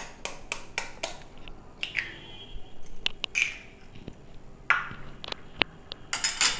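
Steel spoon tapping an egg to crack its shell: a quick run of sharp taps, about four a second, at first, then scattered clicks and cracks as the shell is opened, and a fresh cluster of taps near the end as the next egg is struck.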